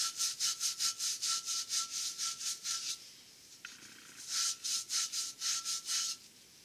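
Scotch-Brite pad scrubbing back and forth on a torque converter's pilot hub to clean it, about five quick strokes a second. There are two runs of strokes with a pause of about a second between them.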